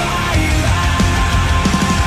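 Loud heavy rock music.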